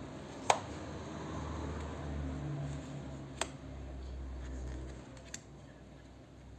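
Hands handling a boxed tarot deck: a sharp click about half a second in, another tap a few seconds later and a faint one near the end, over low handling rumble.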